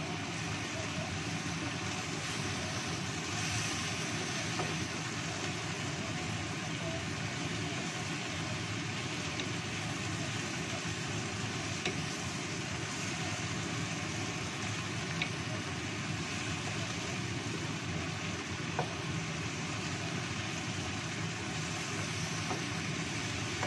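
Steady hiss of fish, chillies and green tomatoes cooking in a wok over a lit gas burner, with a few sharp taps of the spatula against the pan.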